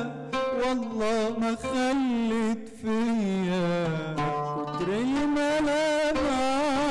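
A man singing a slow Arabic song in an ornamented, wavering style, accompanied by an oud. His line slides down to a long held low note in the middle, then rises again.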